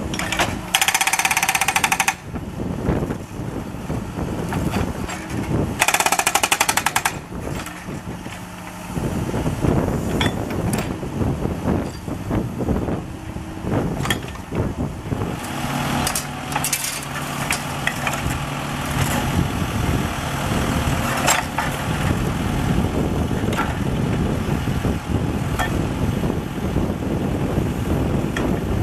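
Hydraulic breaker chiselling asphalt and concrete around a road drain grate in rapid hammering bursts. The two loudest bursts come about a second and six seconds in, followed by more irregular chipping and knocks over a steady engine hum.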